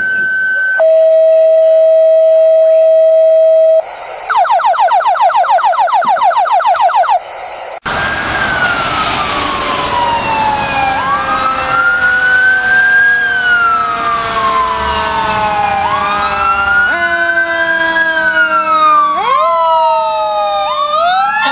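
Fire apparatus sirens: a steady electronic siren tone for about three seconds, then a rapid electronic yelp. About eight seconds in, a mechanical Q siren spins up quickly and coasts down in long falling wails, overlapping a second siren, over road and wind noise.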